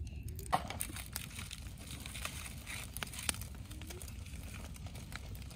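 Wood fire crackling, with scattered pops and snaps over a low steady rumble.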